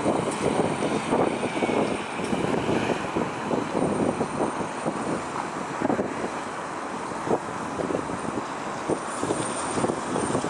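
Road traffic passing on a busy city street: a steady mix of car engines and tyre noise.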